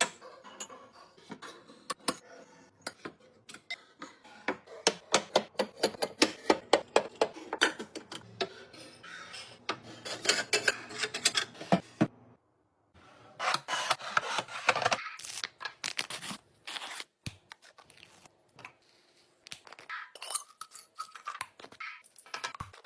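Small hard objects clicking, rattling and rubbing as they are handled and poured into containers, in a rapid patter of clicks with a short break about halfway through.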